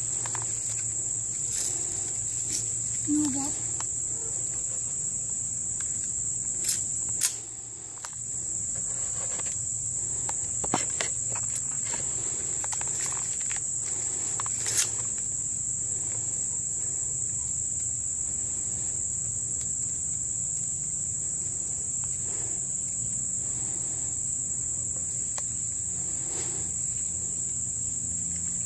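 A steady, high-pitched drone of insects, broken by a few sharp clicks.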